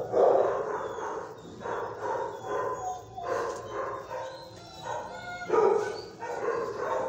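Dog barking, a series of barks at irregular intervals. The loudest come near the start and about five and a half seconds in.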